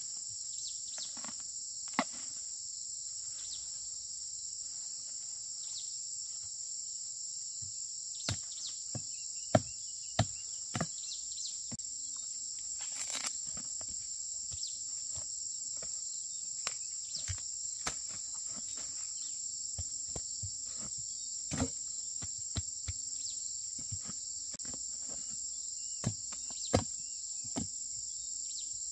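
Steady chorus of insects, an even high buzzing, with sharp clicks and knocks scattered through it, a few of them louder than the rest.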